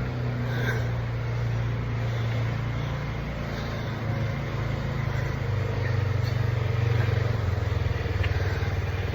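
A motor vehicle's engine running steadily, a low drone that shifts a little in pitch.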